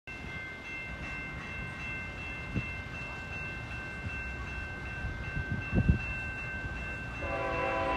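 Approaching freight train's diesel locomotive horn starting to sound about seven seconds in, a full chord of several notes. Before it there is a steady high ringing tone and a low rumble, with a couple of low thumps.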